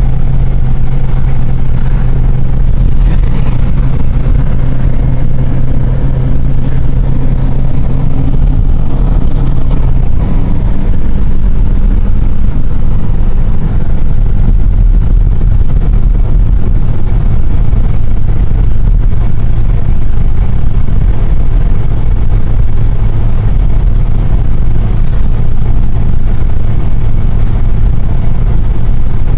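Car driving, heard from inside the cabin: loud, steady engine and road rumble, with the engine's hum shifting to a lower note about ten seconds in.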